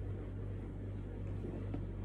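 Steady low hum with a hiss of background noise, unchanging throughout.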